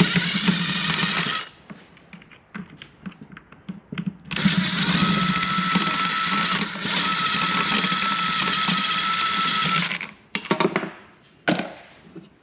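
Power drill running steadily, backing out fasteners during disassembly: a short run, a few clicks and knocks, then a long run of about six seconds with a brief pause partway, followed by a few sharp knocks near the end.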